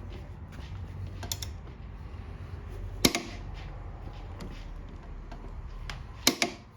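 Torque wrench tightening a motorcycle's rear axle nut. It gives sharp clicks, the loudest about three seconds in and a quick double click near the end, as the nut comes up to the 110 setting.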